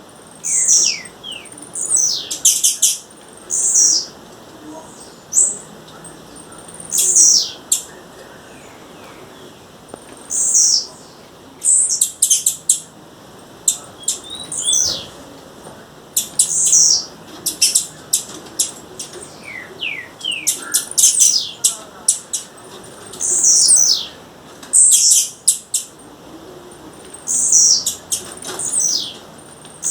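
Blue-black grassquit calling: short, high, sharply falling notes and quick runs of dry clicks, repeated every second or two.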